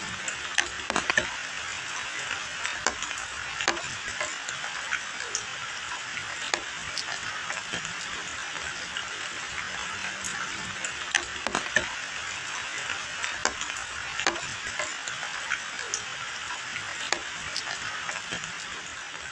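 Steady rain falling on foliage and a wet paved lane, an even hiss dotted with irregular sharp ticks of large drops landing close by.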